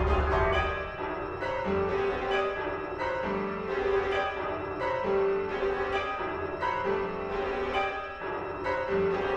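Keyboard music: a harpsichord- or piano-like instrument playing repeated notes and chords in a figure that comes round about every second and a half to two seconds.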